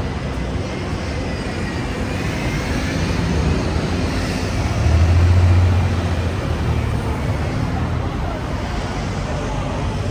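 Busy city street traffic noise, with a heavy motor vehicle passing close about halfway through: its low engine drone rises to the loudest point, then fades.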